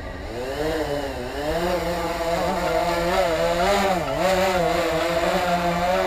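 DJI Phantom 3 Professional quadcopter's four motors and propellers spinning up for takeoff: a buzzing whine that rises in pitch over the first second or two, then holds and wavers up and down as the drone lifts off.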